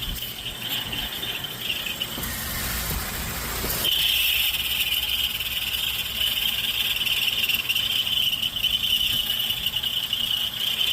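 High-pitched steady squeal from a bad alternator on a running Chevy engine, the sign of a failing alternator. It is fainter at first and comes in strongly about four seconds in.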